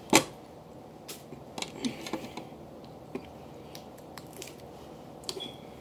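Snow crab shell being cracked and pulled apart by hand: a sharp snap just after the start, then scattered small clicks and crackles of shell breaking.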